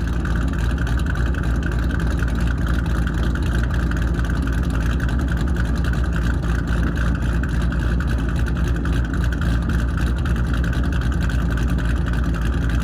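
Ford Mustang's 4.6 L three-valve V8 running steadily through long-tube headers and an aftermarket exhaust, a loud, even exhaust note with no revving.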